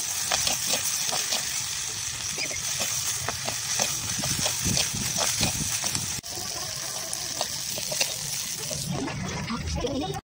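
Chopped okra frying in a clay pot, a steady sizzling hiss with irregular clicks and scrapes of a metal slotted spoon stirring it; the sound cuts off abruptly just before the end.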